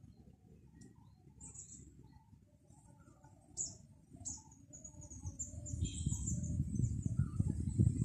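Small birds chirping, with a quick high trill about five seconds in, over soft low cooing from a dove. From about five seconds in, wind buffets the microphone in a growing low rumble that becomes the loudest sound.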